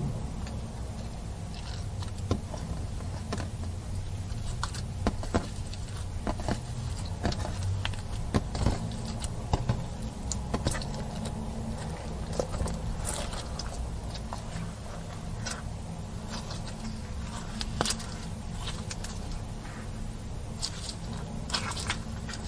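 Slime being kneaded and mixed by hand, making irregular sticky clicks and small pops, over a steady low hum.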